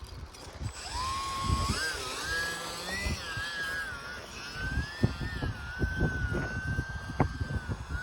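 Electric motor and propeller of a UMX Turbo Timber RC plane whining, starting about a second in and climbing in pitch, then wavering up and down with throttle and airspeed. Wind gusts buffet the microphone throughout.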